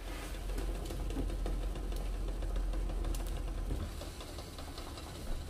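An egg rattling and knocking against the bottom of a steel saucepan of boiling water, many small quick clicks over a low steady hum that fades about four seconds in.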